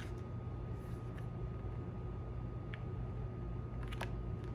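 Steady low electrical hum with a faint steady high tone, broken by a few soft clicks and taps from handling oracle cards, the clearest near the end.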